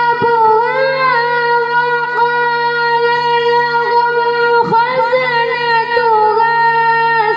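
A female reciter chanting the Quran (qirat) through a microphone and PA, holding long drawn-out notes with small melodic turns and a brief breath break about two-thirds of the way through. A faint steady low hum runs beneath.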